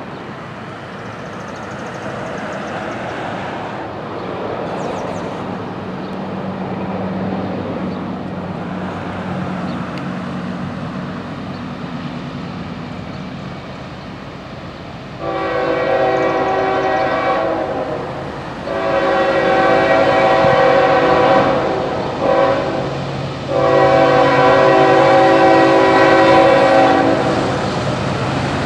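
Diesel freight train led by Norfolk Southern GE ES44AC locomotive 8143 approaching with a steady engine rumble. About halfway through its multi-chime air horn sounds the grade-crossing signal: long, long, short, long.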